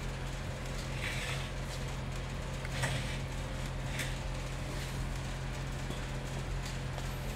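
Quiet pool-hall room tone: a steady low hum, with a few faint short scuffs and clicks about one, three and four seconds in.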